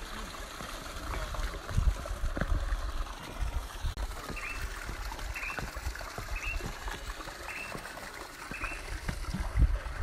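Creek water trickling and running over rocks. In the middle a bird chirps five times, about once a second.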